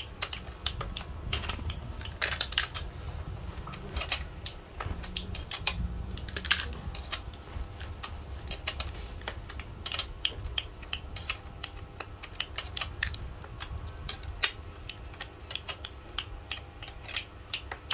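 Uneven metal clicks and taps, several a second, from a hand tool working on the pedal crank of a child's bicycle during assembly.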